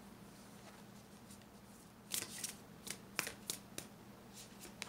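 Tarot cards being handled: a few short, crisp card clicks and rustles, beginning about two seconds in, over a faint steady hum.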